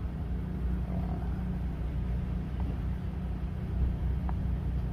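Steady low background rumble, with two faint light taps of a metal fork pressing the edge of a gyoza wrapper against a wooden board, about two and a half and four seconds in.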